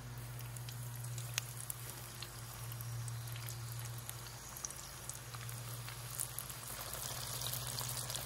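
Battered crappie and bluegill fillets deep-frying in hot oil: a steady bubbling sizzle with scattered crackling pops. A steady low hum runs underneath.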